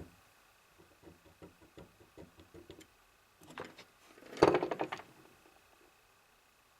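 Small metal tool clicks and knocks as fine-tipped screwdrivers work at the snap ring and shaft of a small server fan, trying to push the shaft out of its bearing. A run of faint light clicks, then a louder cluster of knocks and clatter about four and a half seconds in.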